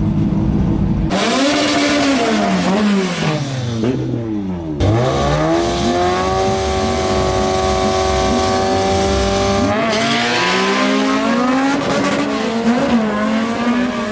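Race cars accelerating hard down a drag strip, engines revving up and dropping as they shift through the gears, with a long steady high engine note in the middle.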